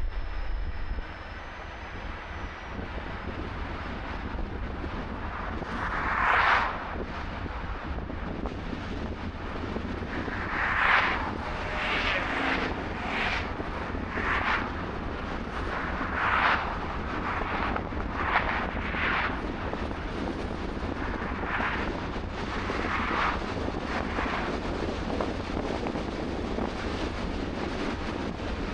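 Steady low rumble and road noise of a moving car, with about a dozen short whooshes coming every second or two from about six seconds in.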